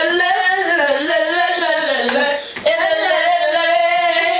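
Boys singing loudly without accompaniment, in long wavering notes, with a short break for breath a little after halfway.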